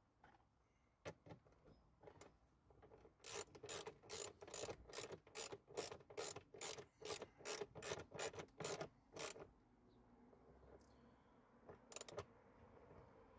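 Hand ratchet wrench clicking as it turns a screw, a quick even run of clicks at about three to four a second for some six seconds, then two more clicks near the end.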